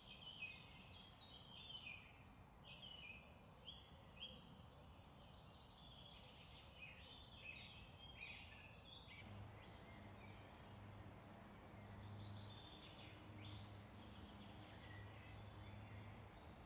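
Faint woodland birdsong: quick chirps and trills that are busiest in the first half. About nine seconds in, a low steady hum joins underneath.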